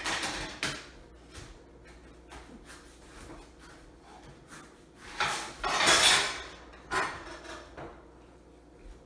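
A large knife cutting a whole watermelon in half on a kitchen counter: a series of knocks and scrapes of the blade and melon against the counter, with a longer, louder noisy stretch about five seconds in as the blade is worked through the rind.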